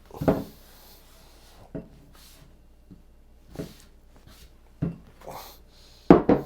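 Kitchen items being handled: six short knocks and clunks, the loudest just after the start and two close together near the end.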